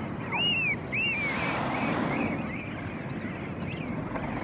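Seabirds calling over open water, with two sharper arched calls about half a second and a second in. A rushing whoosh of a nearby humpback whale's blow swells about a second in and fades within a second or so, over steady wind and sea noise on the microphone.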